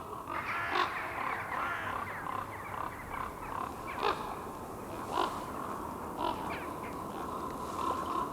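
A flock of common ravens calling to each other as they settle into their roost: a dense, overlapping chorus of croaks and caws, with a few sharper, louder calls standing out about a second in and again around four and five seconds.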